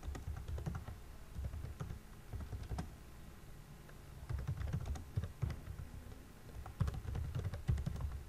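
Typing on a computer keyboard: quick runs of keystrokes in four bursts separated by short pauses.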